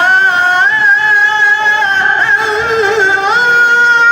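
A man's voice in melodic Quran recitation (tilawah), drawing out the vowel of 'wa bimā' as one long, unbroken note. Its pitch steps up about half a second in, wavers, and settles lower near the end.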